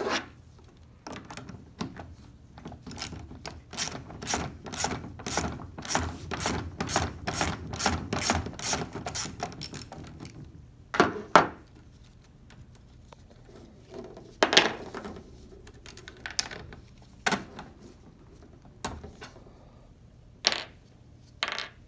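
Ratchet wrench clicking steadily, about three clicks a second for several seconds, as the set screw on a meter roller's end plate is backed out. After that come a few separate metal clinks and knocks as tools and small parts are handled and set down on the table.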